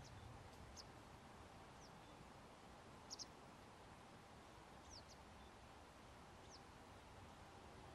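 Faint, high, thin bird calls: short falling notes every second or so, with a quick pair about three seconds in the loudest, over a quiet background hiss.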